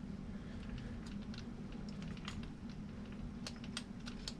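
Scattered light clicks and taps of small parts and a tool being handled while working on an RC crawler's wheel, over a steady low hum.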